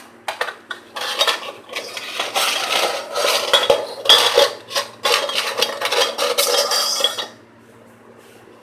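Metal meat-mincer parts clinking and scraping against a stainless steel bowl as they are handled; the clatter stops about seven seconds in.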